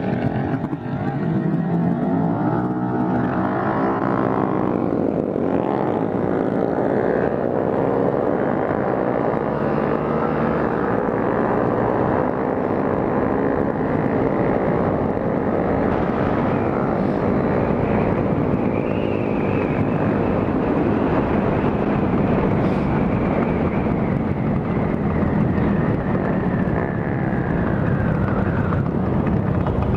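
Honda Grom 125 cc single-cylinder engines running on the move, their pitch rising and falling with throttle and gear changes. Several small bikes' engines overlap with one another.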